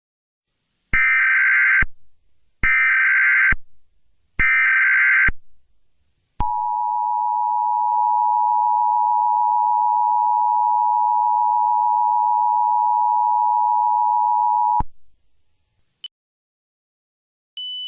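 Emergency Alert System alert opening: three short bursts of SAME digital header data, each about a second long, then the two-tone EAS attention signal, a steady dual tone, held for about eight seconds and cut off sharply. A higher steady tone starts just before the end.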